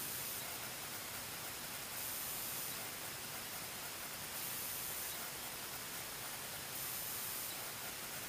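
Steady hiss of the camera microphone's own noise in still woodland, with a faint high hiss that swells briefly about every two and a half seconds.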